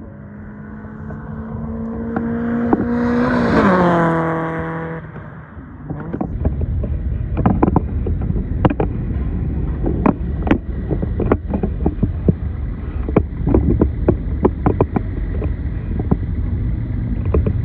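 A race car passes at speed on the main straight: its engine note builds, peaks a little under four seconds in, then drops in pitch and fades as it goes by. From about six seconds on there is a steady low rumble with irregular sharp knocks and taps.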